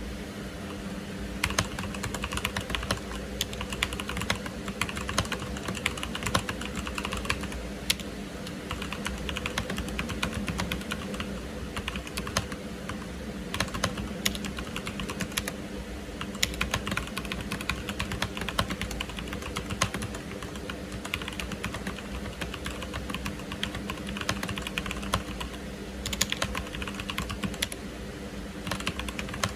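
Continuous typing on a Machenike K7 mechanical keyboard with Zorro black switches, linear clones of Cherry MX Blacks: a rapid, irregular run of keystroke clacks over a steady low hum.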